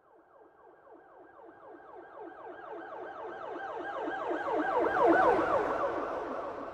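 Emergency-vehicle siren in a fast yelp, sweeping up and down about five times a second. It grows steadily louder, is loudest about five seconds in with a rush of vehicle noise as it passes, then begins to fade.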